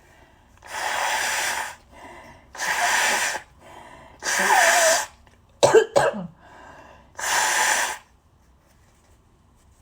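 A person with a head cold blowing a congested nose four times. Each blow is a snotty, honky burst of just under a second, with short breaths between them and two short sharp bursts about halfway through.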